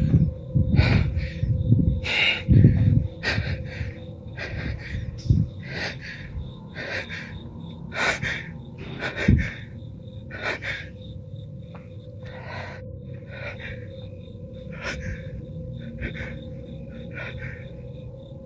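A person breathing hard and fast close to the microphone, short breaths about two a second that grow fainter and sparser after about ten seconds, over a steady hum. Heavy low rumbling from the microphone being jostled fills the first few seconds.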